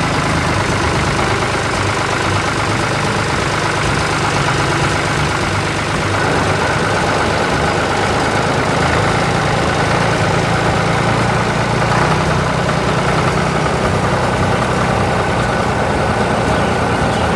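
Heavy vehicle engine running steadily at an even pitch, a machinery sound effect.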